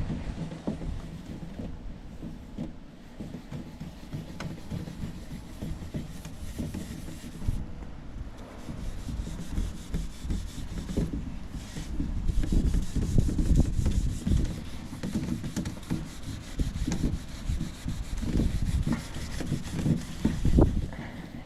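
Steel wool scrubbing chemical stripper over a stained wooden dresser in uneven back-and-forth strokes, lifting the old stain.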